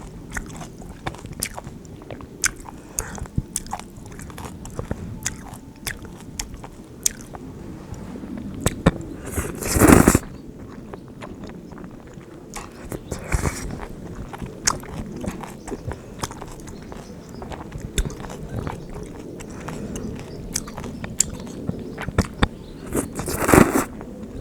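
Close-up eating of bibim-guksu noodles with crisp kimchi: steady chewing and crunching with many small wet mouth clicks, and three louder, noisier bursts of about half a second each, around ten seconds in, a few seconds later and near the end.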